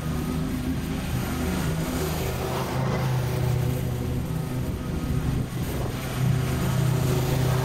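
Stand-on mower's engine running steadily as it cuts thick, overgrown grass, a little louder near the end.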